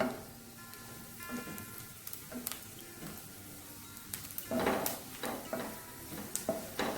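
Bread pieces frying in butter in a hot kadai, with a low sizzle and a spatula scraping and knocking against the pan as they are stirred; the loudest scrape comes about four and a half seconds in. The bread is being toasted until crunchy.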